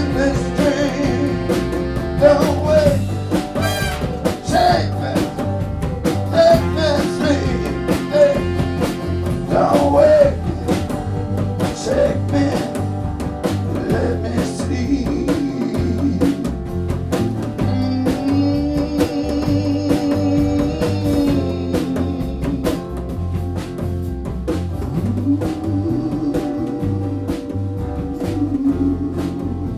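A live band with a horn section playing an instrumental passage: a steady drum kit beat with bass and guitar under a melodic lead, with long held notes about two-thirds of the way through.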